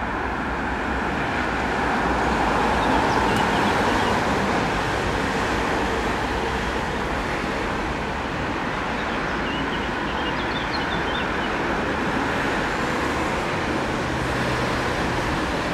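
Street traffic: a steady wash of passing vehicle noise that swells a little a few seconds in.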